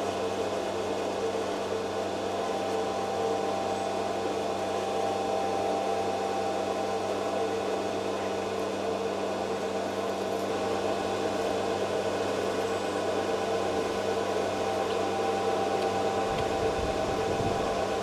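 A steady mechanical hum with a hiss over it, holding several constant tones.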